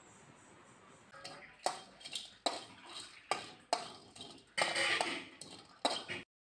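Metal spoon clinking and scraping against a steel vessel as whole spices are pushed around in it: a string of sharp, irregular clinks roughly every half second, with a longer scrape about two-thirds of the way through.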